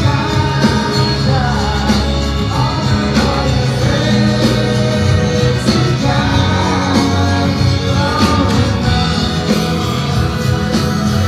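Live rock band playing loud through a concert PA, with a sung vocal line over guitar, bass and drums.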